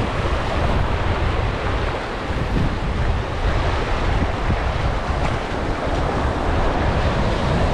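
Small surf waves washing over a shallow reef shoreline, a steady rush of water, with wind buffeting the microphone and adding a low rumble.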